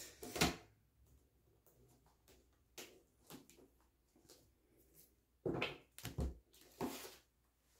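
Tarot deck being handled on a tabletop: a few light taps and card rustles, then near the end the deck is knocked together and set down with a couple of soft thumps.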